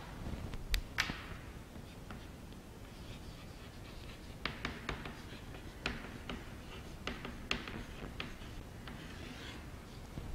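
Chalk on a chalkboard as a word is written and underlined: a run of sharp taps with short scratchy strokes between them.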